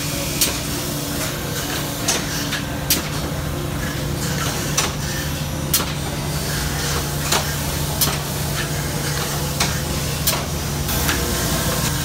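Sawmill machinery running with a steady hum, with sharp metallic clicks at uneven gaps about once a second.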